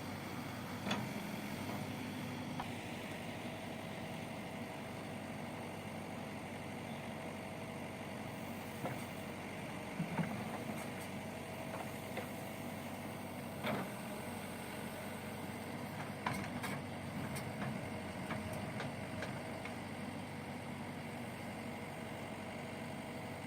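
JCB backhoe loader's diesel engine running steadily at working revs, with a few short knocks now and then.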